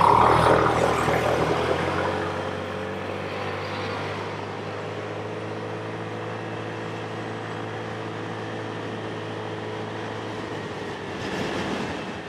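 Motorcycle riding at a steady cruising speed: a steady engine drone under the rush of wind and road noise. A loud rush of noise at the start fades over about two seconds, and the wind swells again near the end.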